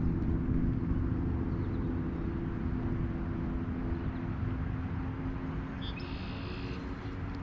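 Small boat motor running steadily with a low, even hum, with a brief high-pitched tone about six seconds in.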